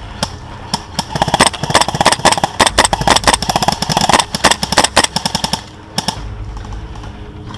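Airsoft rifles firing rapid full-auto bursts, a dense string of sharp cracks from about a second in until nearly six seconds, with a few single shots before and one after.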